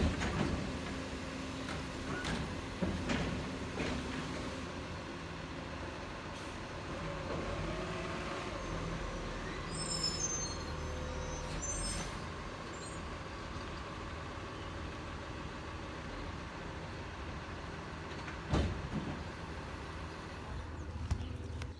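A motor vehicle running and driving, a steady engine rumble and road noise with a few knocks and clunks.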